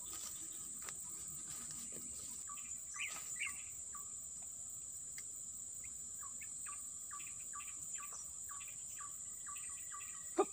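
A steady, high-pitched chorus of insects with short bird chirps scattered through it, and a sharp click right at the end.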